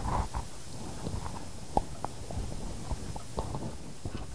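Butter melting in a hot frying pan with chopped green onions, sizzling with irregular small pops and crackles over a low rumble.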